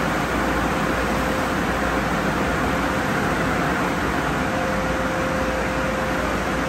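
Conveyor car wash tunnel equipment at work: spinning cloth wrap and rocker brushes scrubbing a foam-covered car amid spraying water. A steady rushing noise with a constant hum underneath.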